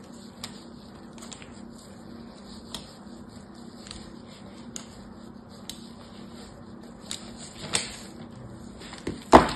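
Thin blade scoring lines into a bar of hard soap, light crisp scratches about once a second with one longer scrape. Near the end a louder knock as the bar is turned and set down on the table.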